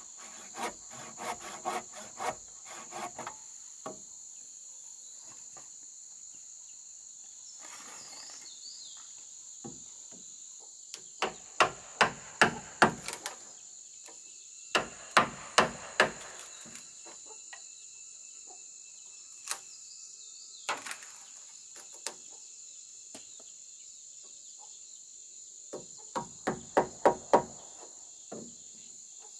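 A hand saw rasping through a wooden rafter in quick strokes for the first few seconds, then a hammer striking the timber roof frame in runs of sharp blows with a few single knocks between. Insects drone at a steady high pitch throughout.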